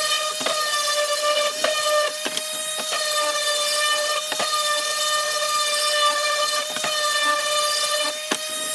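Electric sander running with a steady high-pitched whine, with occasional knocks as it works the wood.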